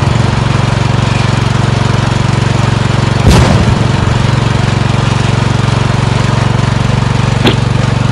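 Riding lawn tractor's engine running steadily as the tractor drives along, heard close up. There is a sharp knock about three seconds in and a short click near the end.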